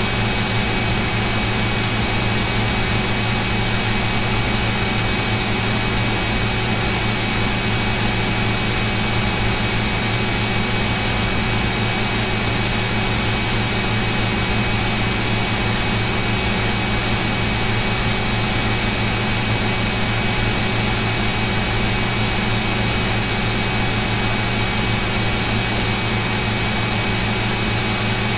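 Steady hum and hiss with no other sound: several constant tones over an even noise that never changes in level.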